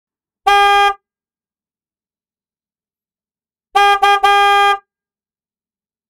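Car horn of a 2006 Opel Corsa: one short honk, then about three seconds later three honks in quick succession, the last held for about half a second.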